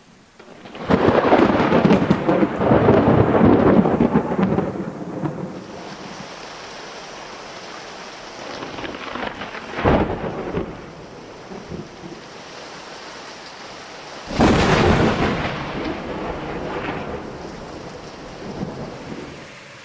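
Thunderstorm: a long loud peal of thunder about a second in, a short sharp crack near the middle, and another loud peal about fourteen seconds in, over steady rain.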